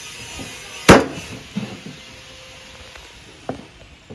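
Meat cleaver chopping cooked chicken on a round wooden chopping board: one hard chop about a second in, then a few lighter knocks.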